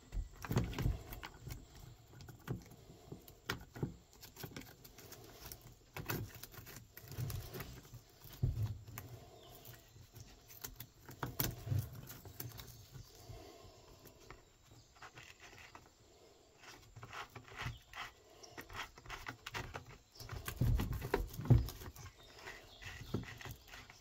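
Handling noises from fitting a saw chain onto a DeWalt 20V chainsaw's bar: chain links clinking and rattling, scattered clicks and knocks of the saw's plastic body and metal bar on a wooden tabletop, and leather work gloves rubbing. Heavier thuds come now and then, a cluster of them about three-quarters of the way through.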